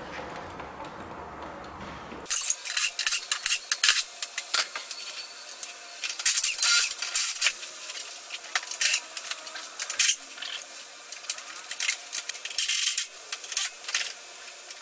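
Irregular metallic clicks and clinks of hand tools and bolt hardware being handled and worked on the golf cart's suspension. They start abruptly about two seconds in, after low room noise.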